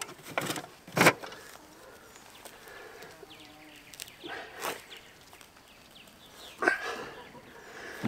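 A handful of sharp knocks and thumps, loudest about a second in and near the end, from handling the solar fence charger and pushing its ground rod into the ground. Faint bird chirps sound in between.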